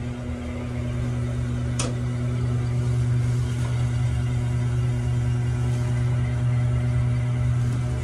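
Steady low hum of running fan-motor and drive machinery, with a fainter steady tone above it, growing a little louder over the first few seconds. A single sharp click about two seconds in.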